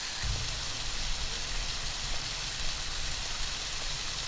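Steady hiss of water falling over a small waterfall, with a low wind rumble on the microphone starting shortly after the beginning.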